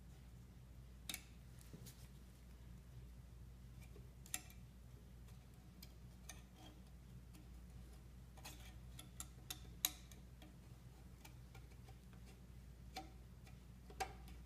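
Scattered small, sharp clicks and ticks at irregular intervals as a steel palette knife works under lifting brass marquetry elements, over a faint low hum.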